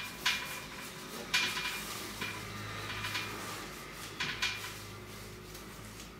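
A flat webbing strap and its fastener being handled against a metal rack upright: about half a dozen sharp clicks and knocks at uneven intervals, with faint rustling between them.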